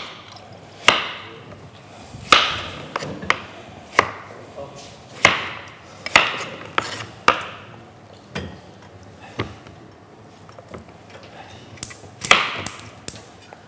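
Knife cutting raw potatoes on a wooden cutting board: about a dozen separate chops, irregularly spaced roughly a second apart.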